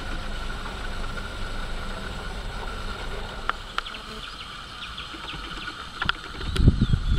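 Steady insect buzzing outdoors, with a few faint clicks in the middle. Near the end come several loud, low rumbling bursts.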